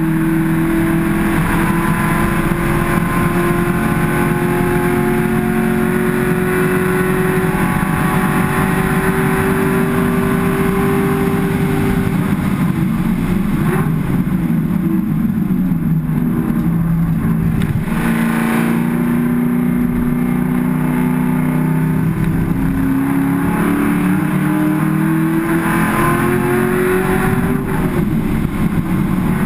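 Race car engine heard from inside the cabin under hard acceleration. Its note climbs steadily for about ten seconds, falls away as the car slows about halfway through, then climbs again and drops back near the end.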